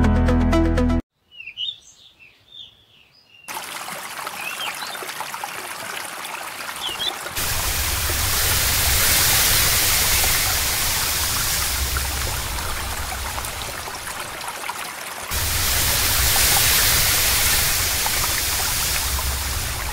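Music cuts off about a second in, then birds chirp briefly over faint background. After that comes steady running water from a shallow stream flowing over stones, growing louder about seven seconds in. After a cut near the end it gives way to the rush of a fast-flowing river.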